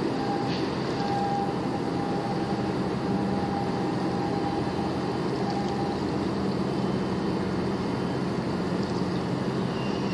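Steady engine drone of a boat underway, mixed with wind and water noise, with a faint higher tone through the first half.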